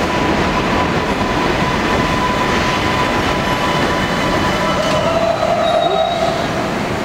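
Vintage New York subway cars at the platform, giving a steady rumble and hum with a thin high squealing tone, which grows brighter about five to six seconds in.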